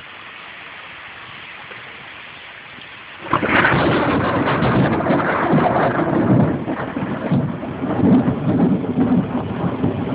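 Steady rain hissing, then about three seconds in a loud crack of thunder breaks in and rolls on as a long, uneven rumble.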